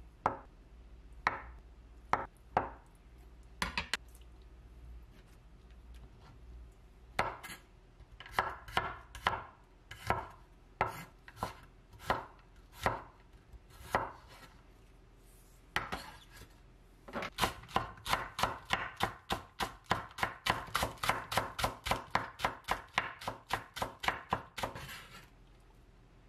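Kitchen knife cutting on a bamboo cutting board: scattered single strikes while cutting tofu and slicing garlic, then, past the halfway mark, a quick even run of chopping, about four or five strokes a second, through green onions.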